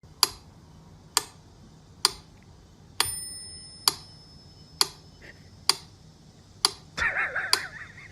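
Sharp, evenly spaced ticks a little under one a second, like a clock, two of them carrying a ringing bell-like ding. A short wavering, warbling sound comes in about seven seconds in.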